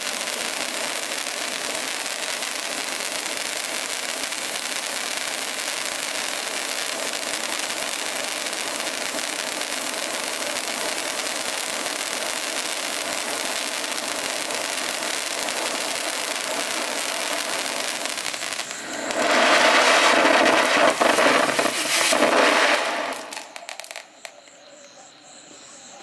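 Handheld titanium-spark firework fountain burning with a steady hissing rush of sparks. Near the end it grows louder for a few seconds, then dies away as the fountain burns out.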